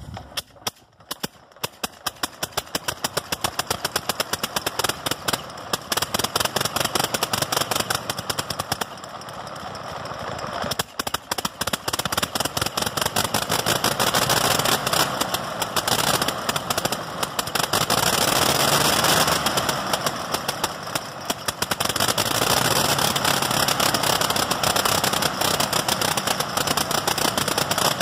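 1918 Gnome rotary aircraft engine catching on a hand swing of the propeller and running, a rapid train of sharp firing strokes that is uneven at first. It falters briefly about ten seconds in, then picks up and runs steadily.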